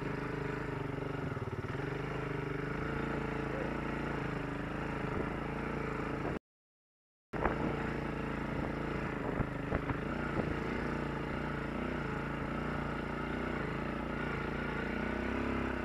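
Honda TRX quad's single-cylinder engine running steadily as it is ridden over a snowy, muddy track, with some clatter and a few knocks from the machine. The sound drops out completely for about a second near the middle.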